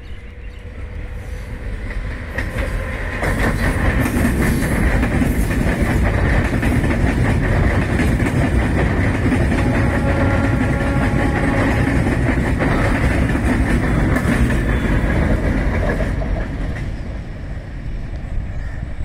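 Indian Railways electric multiple-unit passenger train passing close by, its wheels clattering on the rails. The sound builds over the first few seconds, stays loud while the coaches go past, and fades over the last few seconds as it moves away.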